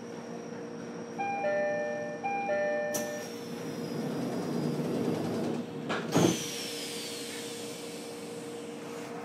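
E129-series train's door chime sounding two high-low two-note chimes, then the powered sliding doors closing, ending in a thud about six seconds in with a fading hiss of air. A steady hum from the stationary train's equipment runs underneath.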